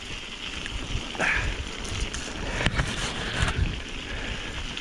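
Wind buffeting the microphone over a rough, rumbling noise, with irregular low thumps.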